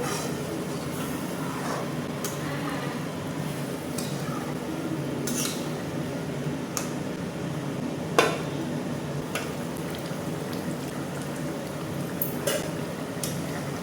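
A pan of chicken curry being stirred: a utensil scraping and clicking against the pan over a steady background of cooking noise, with one louder knock about eight seconds in.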